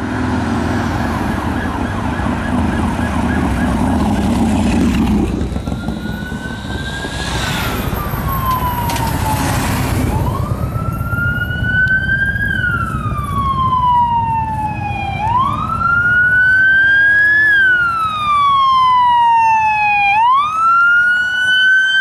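Police car siren on a wail: each cycle rises quickly, then falls slowly, repeating about every five seconds. It comes in about six seconds in over passing-traffic rumble and grows stronger as the car nears.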